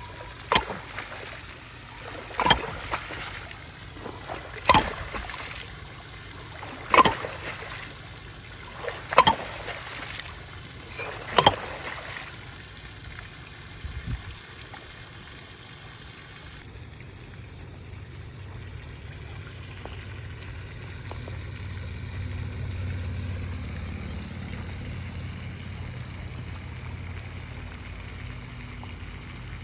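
Water splashing in regular strokes, six of them about two seconds apart, from someone moving through pond water; after about twelve seconds the strokes stop and only a steady low water-and-background hiss remains.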